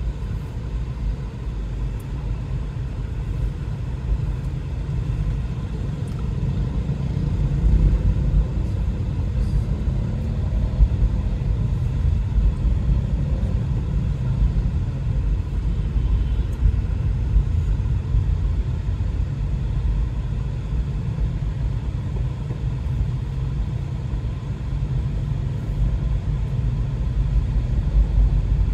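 Steady low rumble of a car heard from inside its cabin, its engine and tyres running on a wet road in slow traffic.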